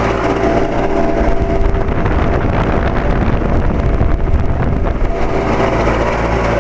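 Central air-conditioner condensing unit (2007 Carrier, 2.5-ton) running with a steady electrical hum and tones. From about a second and a half in to about five seconds a rough, rapid fluttering noise swells over the hum. These are the weird noises the owner has heard on and off for years, which he believes come from the condenser fan motor.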